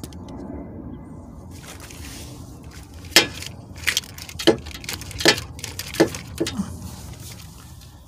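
Ratchet wrench working loose an 18 mm engine-to-transmission bolt: a series of about six sharp metallic clicks, unevenly spaced under a second apart, from about three seconds in, over a low steady background noise.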